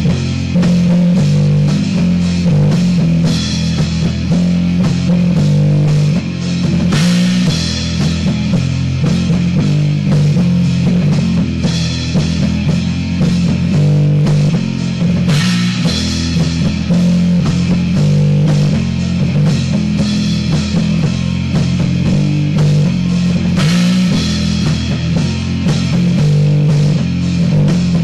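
Rock band of electric guitar, bass and drum kit playing loud and steady, with crashes about every eight seconds. It is a lo-fi recording made on a Lloyd's V327 boombox cassette recorder.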